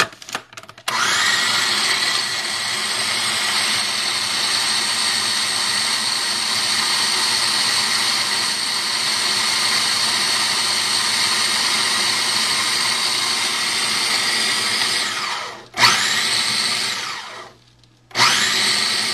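Small electric food processor processing a sticky mix of dates, raisins and nuts. After a few clicks, the motor starts abruptly about a second in and runs steadily with a whine for some fourteen seconds. It then spins down with a falling whine, and near the end a short pulse starts it again.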